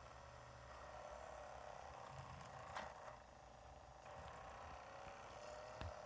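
Faint whir of a portable DVD player's disc drive spinning and reading a newly loaded disc, wavering slightly in pitch, with a soft click about three seconds in and another near the end.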